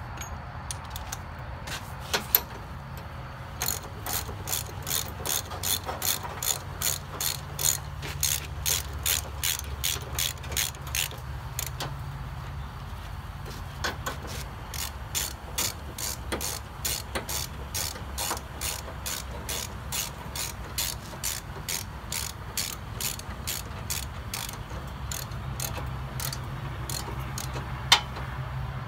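Hand ratchet wrench clicking in quick, even strokes, about three clicks a second, as the bolts of the LED light bar's brackets are tightened. There is a short pause about eleven seconds in, and a low steady hum underneath.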